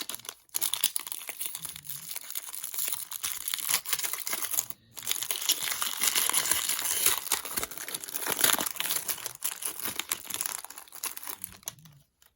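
Trading-card pack wrapper crinkling and tearing as it is ripped open and pulled off the cards, a dense crackle that breaks off briefly twice.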